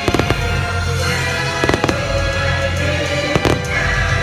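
Fireworks going off in sharp bangs: a pair right at the start, another pair a little under two seconds in, and one more about three and a half seconds in. Loud show music plays through it.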